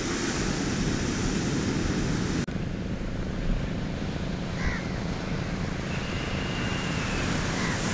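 Sea surf breaking on a beach, a steady rushing noise with wind rumbling on the microphone; a brief dropout about two and a half seconds in.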